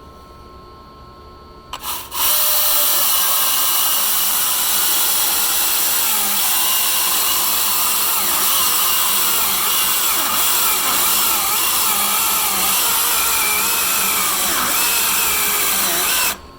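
Husqvarna 120i battery-powered chainsaw, a 40-volt electric model, cutting dry Douglas fir firewood. Its steady high whine and chain noise start about two seconds in, waver in pitch as the saw works through the wood, and stop abruptly near the end.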